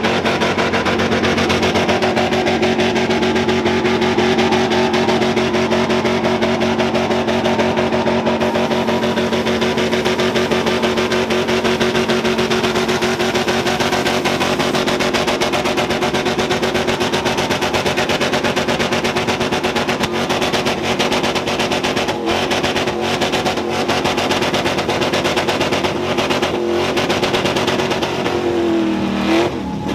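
LSX V8 pickup doing a burnout: the engine is held at high, steady revs while the rear tyres spin in clouds of smoke. A few sharp cracks come in the second half, and the engine pitch falls near the end as the throttle comes off.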